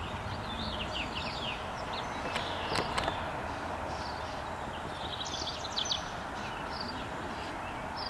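Typewriter keystrokes from a 1923 Oliver No. 11, a few sharp irregular clacks (about three close together near three seconds in, another near six seconds), over small birds chirping and a steady background hiss.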